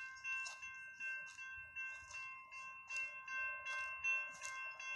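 Railroad grade-crossing warning bell ringing steadily, about two and a half strikes a second, each strike ringing on over the next. The crossing has been set off by a malfunction, with no train present.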